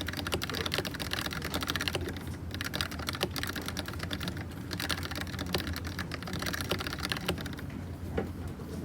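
Typing on a Dugard x Thinkway Toche mechanical keyboard with red linear switches: quick runs of key clacks with short pauses between them.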